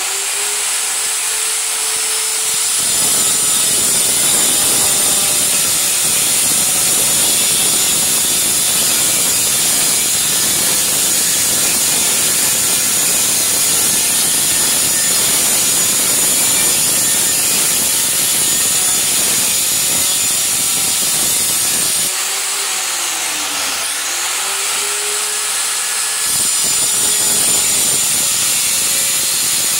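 Handheld electric tile cutter running at full speed, its blade grinding a series of fine slits into a tile strip. The motor's whine rises as it spins up free at the start and again for a few seconds about three-quarters through, between long stretches of cutting.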